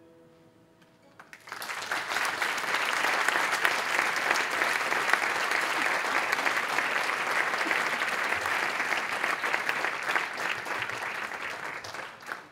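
Audience applause: a few scattered claps, then a full round of clapping swells about a second and a half in and dies away near the end.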